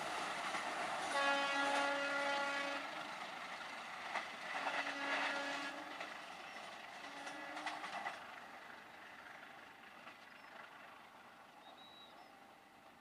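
A passenger train running away along the track, its rumble and wheel noise fading, with a few wheel clacks. A locomotive horn sounds three blasts, each shorter than the one before, the last about eight seconds in.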